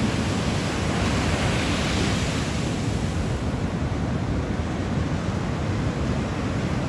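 Ocean surf breaking on a beach: a steady wash of waves that swells a little about two seconds in, with wind rumbling on the microphone.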